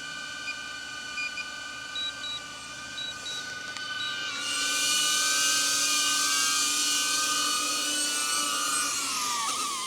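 DJI Avata FPV drone's ducted propellers whining as it comes in to land, louder as it closes in about halfway through, then dropping in pitch near the end as it touches down and the motors slow. A few short high beeps sound early on.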